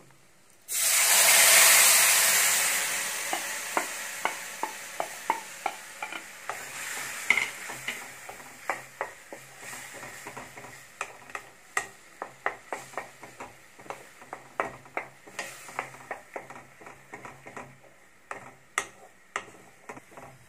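Wet onion, tomato and cashew paste hitting hot melted butter in a kadhai: a sudden loud sizzle about a second in that slowly dies down to a steady frying hiss. A wooden spatula stirring the paste knocks and scrapes against the pan many times.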